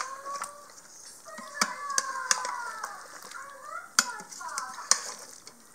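Metal spoon stirring a thick pork-feet stew in the stainless steel inner pot of an Instant Pot, with several sharp clinks of spoon on pot spread through.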